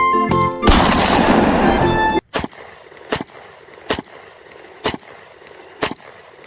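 Background music, then a loud hissing burst that cuts off abruptly about two seconds in, followed by single sharp shot-like cracks about once a second, from toy guns being fired.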